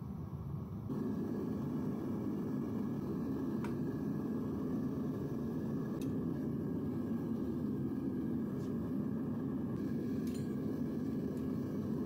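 Devil Forge propane furnace burner running with a steady, low rushing noise, which steps up louder about a second in and then holds. A few faint ticks sound over it.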